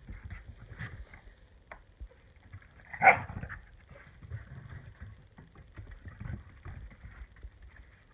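Two dogs play-fighting on a wooden deck: paws and claws scuffling and tapping irregularly on the boards, with one short, loud bark about three seconds in.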